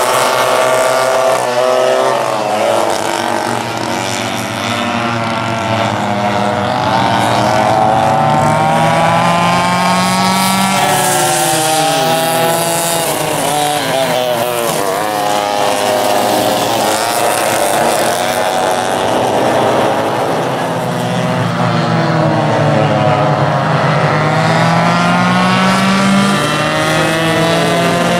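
Several vintage rear-engine racing karts' small two-stroke engines running at once as the pack races past. The engines rise in pitch as they accelerate and drop in pitch as each kart goes by, around ten seconds in and again near the end.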